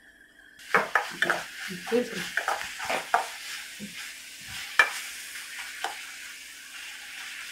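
A perforated metal spatula stirs and scrapes a thick bitter gourd and ketchup paste around a hot kadai while the paste sizzles as it fries down. The sizzle comes in about half a second in, with irregular scrapes and knocks of metal on the pan; the sharpest clack comes about five seconds in.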